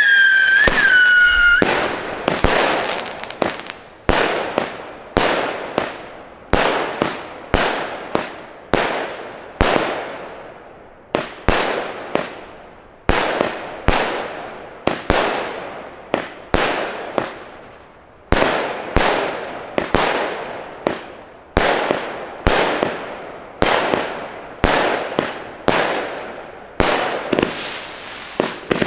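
Weco Big Surprise fan-cake firework battery firing shot after shot, about one to two a second, each a sharp bang fading away in a hiss and crackle. A high wavering whistle sounds for the first second or two as it gets going, and the shots come thicker near the end.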